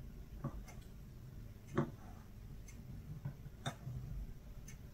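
Clock ticking about once a second in a quiet room, with a few soft knocks, the loudest about two seconds in.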